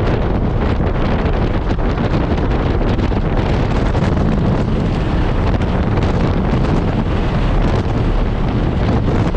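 Steady, loud rush of wind and road noise in the cabin of a moving car, buffeting the camera's microphone, with no clear engine note standing out.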